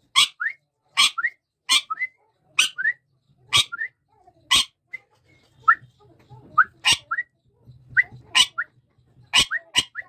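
Rose-ringed parakeet calling: sharp, shrill shrieks about once a second, many followed at once by a short rising whistle, with a few lone whistles in a gap midway.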